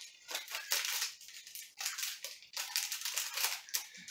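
Cardboard granola-bar box being handled and a wrapped bar pulled out of it, the packaging rustling and crinkling in a quick, uneven run.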